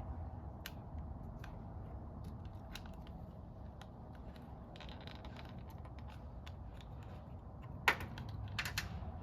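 Small screwdriver prying at a plastic cable holder on a car door lock actuator: scattered light clicks and scrapes, with a sharper click about eight seconds in, over a low steady hum.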